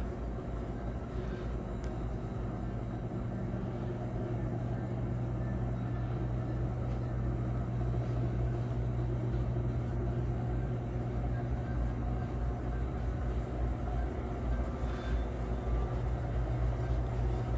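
Steady low mechanical hum with an even background noise, unchanging throughout.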